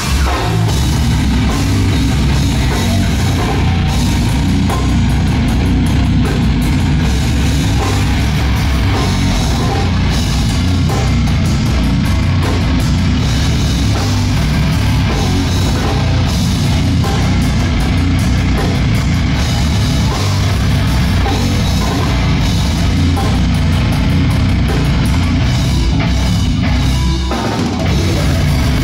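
Death metal band playing live at full volume: distorted guitars and a drum kit. There is a brief break near the end before the band kicks back in.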